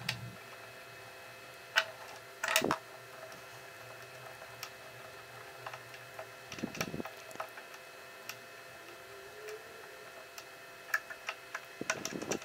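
Scattered clicks and knocks of small parts being handled: a 3D-printed plastic holder fitted onto a stepper motor's shaft and a hex key working its set screw. The loudest knocks come about two and a half seconds in, with a quick run of clicks near the end, over a faint steady hum.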